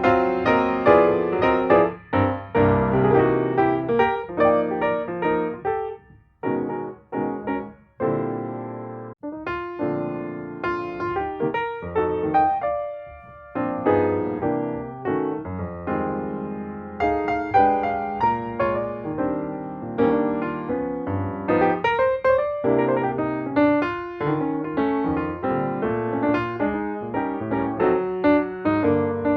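Background piano music, notes struck and fading, with a few brief pauses partway through.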